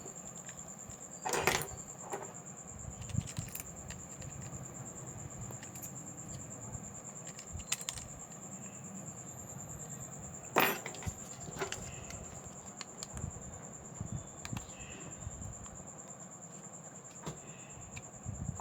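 Scattered clicks and taps of small metal tools and parts being handled during a smartphone repair. There is a louder clack about a second and a half in and another about halfway through, over a steady high whine.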